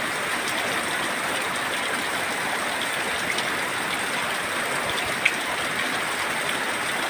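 Heavy rain pouring down, a steady, dense hiss with scattered drop ticks and one sharper tick about five seconds in.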